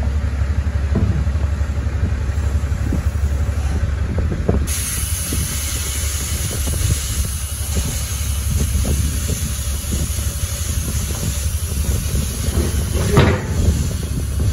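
Kenworth semi truck's diesel engine running with a steady low rumble as the truck backs slowly toward the lowboy trailer. About five seconds in, a steady hiss of air starts and carries on, and near the end there is a single clunk.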